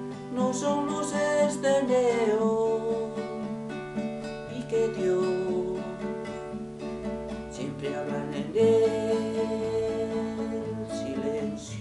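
Acoustic guitar playing the closing chords of the song, with a sung note held over it; a new chord comes in more loudly near the end.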